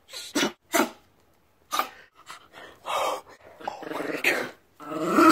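Dogs play-growling and grumbling at each other in rough play: a string of short vocal calls, longer and louder near the end.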